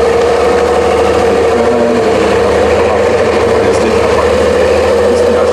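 Praga V3S 6x6 trial truck's diesel engine running steadily under load as the truck climbs a sandy slope, with no big revs up or down.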